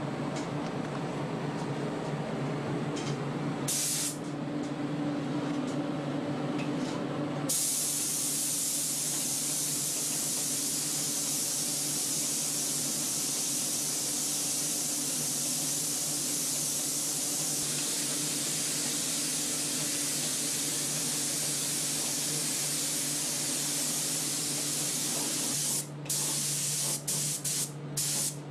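Compressed-air gravity-feed spray gun spraying paint onto a helmet: a loud steady hiss that starts about a quarter of the way in, then stops and restarts several times in quick short gaps near the end as the trigger is let off and squeezed again. Before the spraying there is a steady low hum with one brief puff of air.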